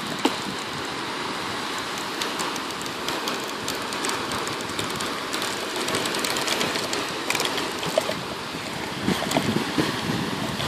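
Steady outdoor rushing noise of wind on the microphone, with light scattered clicks and crackles from the handheld plastic cup.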